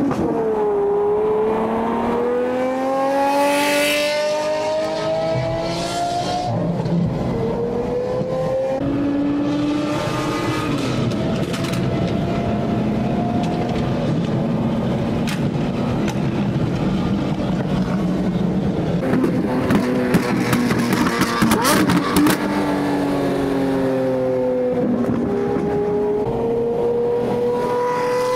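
Lamborghini Aventador V12 engines accelerating hard, the exhaust note climbing for several seconds and dropping back at each upshift, with a steadier cruising stretch between pulls. A quick run of sharp exhaust crackles about two-thirds of the way through.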